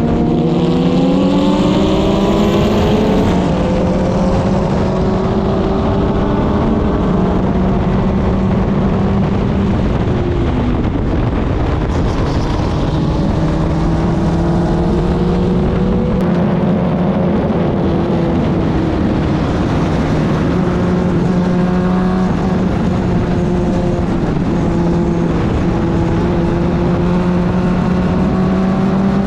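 Club Ford single-seater race car's four-cylinder engine running hard at racing speed, its pitch climbing, dropping and climbing again through gearshifts and braking for corners, over a steady rush of wind and road noise.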